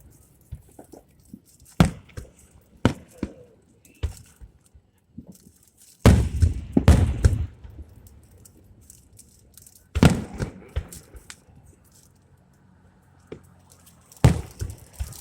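Fireworks shells bursting with irregularly spaced booms. The loudest comes about six seconds in, followed by a second or so of crackling, with further bursts about ten seconds in and near the end.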